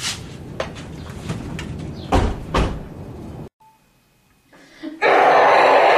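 Door of a Saturn SUV handled with a few knocks, then slammed shut with two heavy thumps about two seconds in. After a short hush, a loud steady rushing noise starts about a second before the end.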